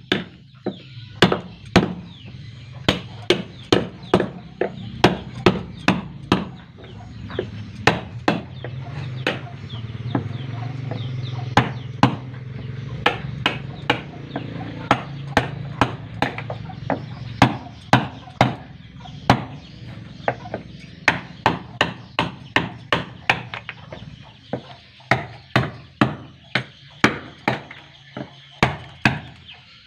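Hand tool striking wood again and again, about two sharp blows a second with short pauses, while boat timbers are worked. Under it runs a low hum that grows louder for a while in the middle.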